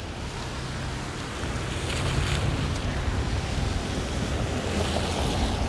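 Wind buffeting the microphone with a steady low rumble, over the hiss of car tyres passing on a wet, slushy road. It gets louder about two seconds in.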